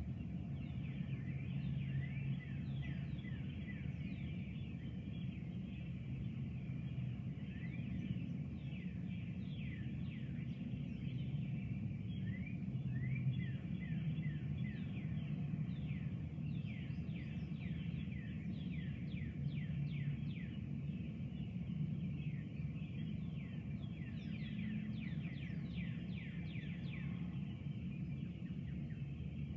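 A dense outdoor chorus of many short, high chirping calls, overlapping and continuous, over a steady low rumble.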